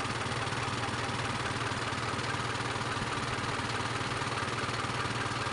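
Isuzu 4HL1 four-cylinder diesel engine idling steadily, running on a newly fitted throttle actuator, crankshaft sensor and camshaft sensor after a hard-starting and stalling fault.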